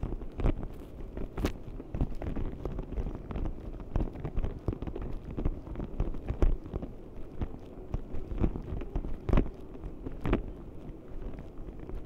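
Walking across a hard terminal floor: a dense run of irregular footsteps and knocks over a steady low rumble.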